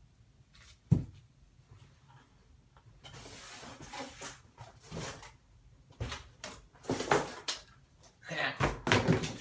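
Handling noise from a skateboard deck being unboxed: a sharp knock about a second in, then rustling and rubbing with several more knocks near the end.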